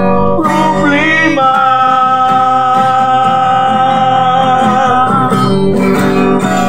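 Two acoustic guitars strummed while a man sings, holding one long note on the end of the line from about a second in until past five seconds.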